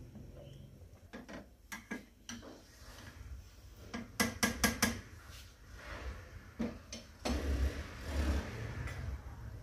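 A spoon scraping and knocking against the side of a steel cooking pot while stirring thick simmering milk pudding, with a quick run of four or five knocks about four seconds in.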